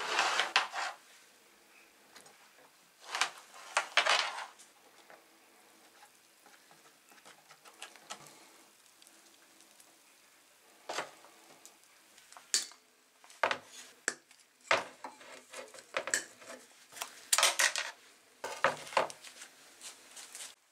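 Old rusty Unior 200 steel pincers and their wire hanger being handled, lifted out of an electrolysis rust-removal bath and set down on a plastic tray. The sound is a series of metal clinks, scrapes and rattles, loudest about a second in, around four seconds and again near the end, with lighter clicks between them.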